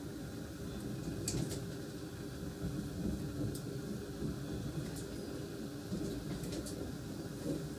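Inside an NSB Class 74 (Stadler FLIRT) electric multiple unit on the move: a steady low running rumble, with a few sharp clicks from the wheels crossing points and rail joints.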